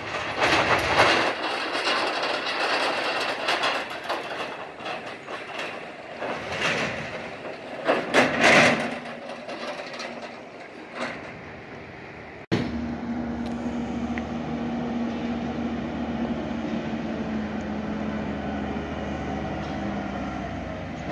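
Pickup truck driving over rough ground, rattling and clanking, with loud bangs about a second in and again around eight seconds. After a sudden cut partway through comes a steady drone of the running vehicle.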